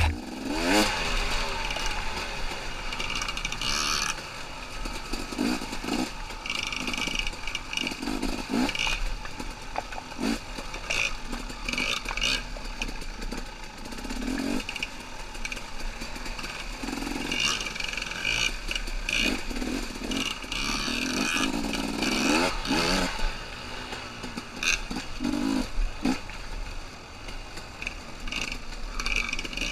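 Two-stroke dirt bike engine running at constantly changing revs as the rider rolls on and off the throttle, with frequent knocks and clatter from the bike over the rough, rocky trail.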